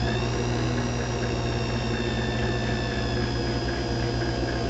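Small watchmaker's lathe motor running at a steady speed: a high whine over a low hum as it spins the screw, whose head is being flattened.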